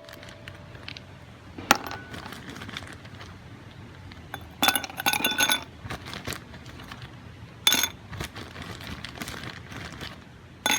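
Hard items of camping gear clinking and knocking together: single sharp clinks, then a rattling cluster of ringing clinks about five seconds in, over a steady background hiss.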